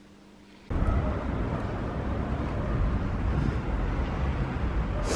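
A brief near silence, then, under a second in, steady outdoor street noise starts: a low rumble of wind on the microphone mixed with traffic.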